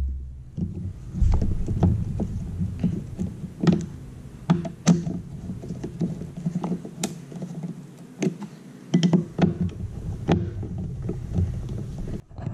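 Hand tools tightening the Torx mounting screws of a Jeep Wrangler YJ wiper motor: a socket driver and then a screwdriver, with irregular metal clicks and knocks a few times a second over a low rumble.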